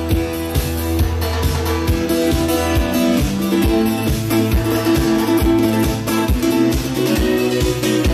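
Upbeat instrumental music with a steady, even beat and a guitar-like lead.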